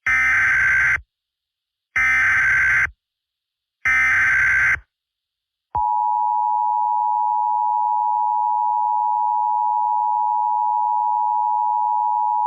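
Emergency Alert System test opening: three one-second bursts of SAME header data tones about two seconds apart. Then the steady two-tone EAS attention signal starts about six seconds in.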